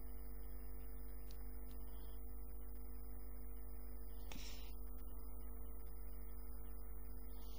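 Steady electrical hum and buzz in the audio line, with a brief soft hiss about four seconds in.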